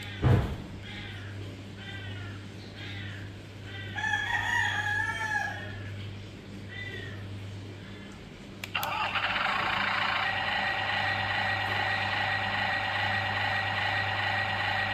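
Chickens clucking and a rooster crowing in the background, with a sharp knock just after the start. About nine seconds in, the Yi Gong YG258C toy excavator's built-in sound simulator starts a steady electronic engine sound from its speaker.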